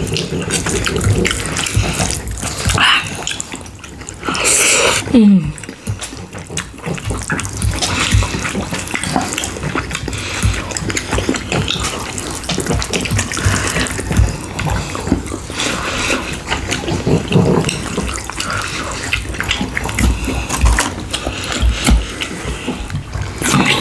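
Close-miked wet chewing and mouth sounds of people eating, a steady run of small smacks and clicks.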